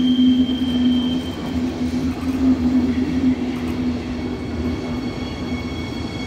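Flixtrain passenger train rolling slowly past during a shunting move. A high wheel squeal fades out about a second in, and a low hum and rumble of wheels on rail get quieter as the train moves away.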